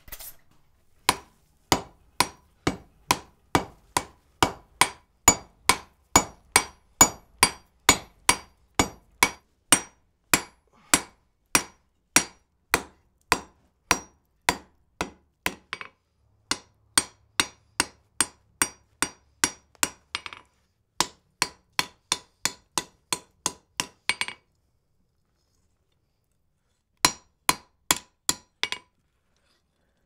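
Hammer blows on wrought iron at the anvil, a steady run of ringing strikes at about two to three a second. Short breaks come partway through, the hammering stops, and then one more short burst of blows follows near the end.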